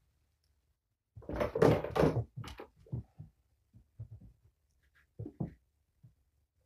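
A stiff white plastic panel scraping and clattering as it is shifted on the floor, the loudest stretch lasting a little over a second, followed by a few softer knocks and taps.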